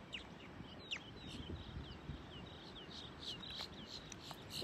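A bird calling: a quick run of short, high, downslurred chirps, roughly four a second, over a faint steady hiss of wind and surf.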